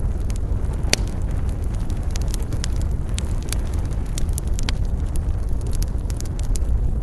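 Wood fire burning in a fireplace: a steady low rumble of the flames with frequent sharp crackles and pops from the logs, the loudest pop about a second in.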